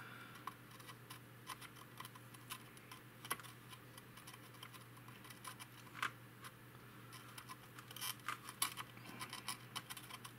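Light, irregular clicks and scratches from a soldering iron tip working the pads of a burnt transistor on a circuit board, with a quick cluster of clicks about eight seconds in.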